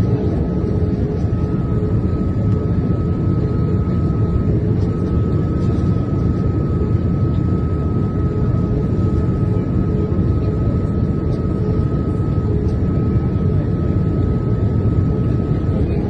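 Steady cabin noise of a Boeing 787-9 in flight, heard from a window seat over the wing: a constant deep roar of engines and airflow, with a faint steady high whine running through it.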